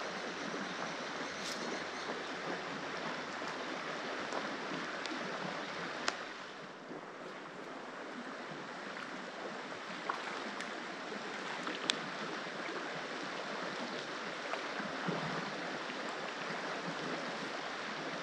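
River water rushing steadily, with a few faint sharp clicks.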